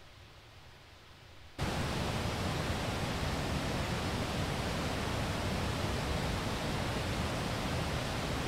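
Steady, even rush of running water from a stream, cutting in suddenly about one and a half seconds in after a quiet stretch.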